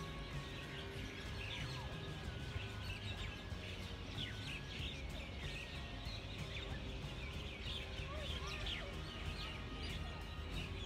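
Many birds in the trees chirping and calling in short, quick notes, over a steady low rumble of background noise.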